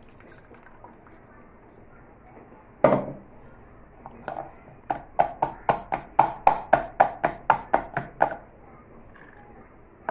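Sharp knocks of kitchenware at the strainer: one hard knock, then a quick, even run of about fourteen taps at roughly four a second, while mint-coriander pani-puri water drains through a plastic strainer.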